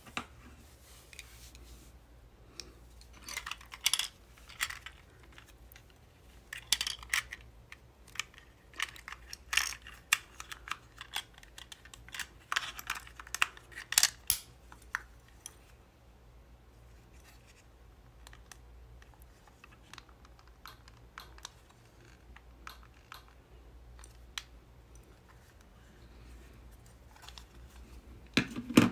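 A Profoto wireless flash remote being handled: a busy run of plastic clicks, snaps and small knocks as it is opened and AA cells are fitted, then sparser, fainter clicks as its buttons are pressed.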